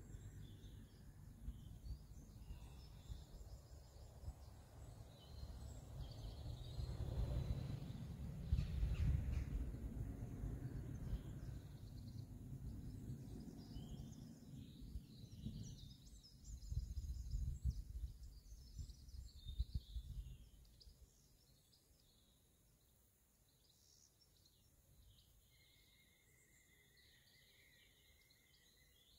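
Wind buffeting the microphone in a low, gusty rumble that swells in the middle and dies away about three quarters of the way through, with small songbirds chirping throughout.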